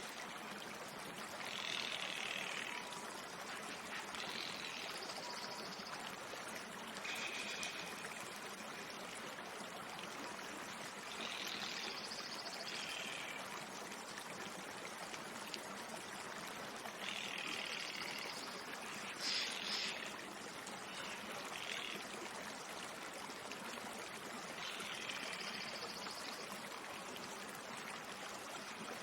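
Forest ambience: a steady rush of running water, with short high-pitched calls of about a second each recurring every few seconds.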